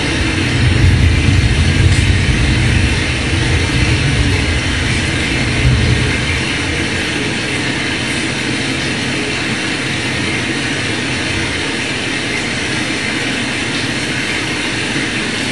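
Loud, steady rumbling noise, heavier in the low end for the first six seconds or so, then settling to an even level.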